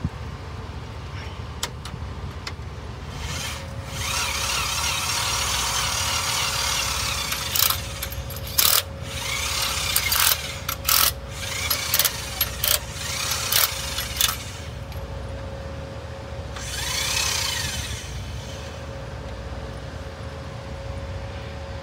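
Power drills turning a cylinder-liner counterbore cutter on a Detroit Diesel Series 60 14-litre engine block. The drills start about four seconds in and run for a few seconds, then come a string of short on-off bursts and one more brief run near the end, all over a steady low hum.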